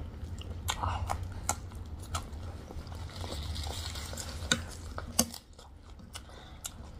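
Eating sounds: chewing with scattered light clicks of cutlery against plates, and two sharper knocks about four and a half and five seconds in.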